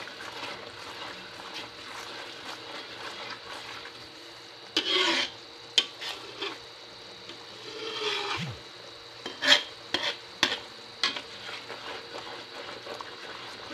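Metal ladle stirring and scraping coconut milk as it cooks down in a metal pan, over a steady sizzle, with louder scrapes now and then and sharp clinks of the ladle against the pan. The coconut milk is being reduced, stirred constantly so it does not clump, into toasted coconut curds for a topping.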